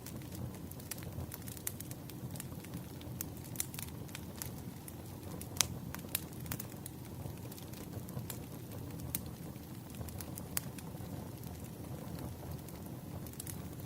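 Wood fire crackling: irregular sharp pops and snaps over a low steady rumble, with one louder snap a little before the middle.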